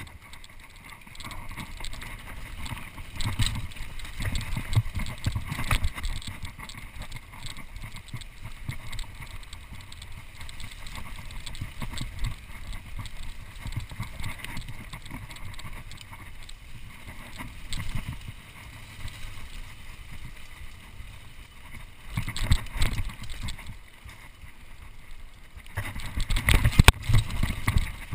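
Mountain bike being ridden along a dirt singletrack trail: tyre noise and the bike rattling over bumps, with gusts of low rumble from wind on the camera microphone, loudest a few seconds in and near the end.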